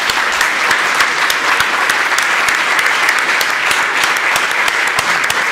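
An audience applauding: many hands clapping in a dense, steady stream.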